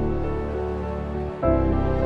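Instrumental background music of slow, sustained chords, moving to a new chord about one and a half seconds in.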